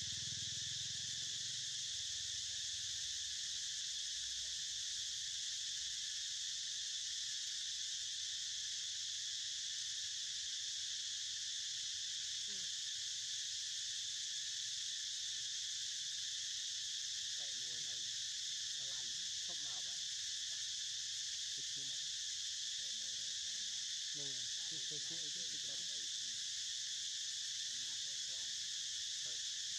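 Steady, unbroken insect chorus: a high, even drone that neither rises nor falls.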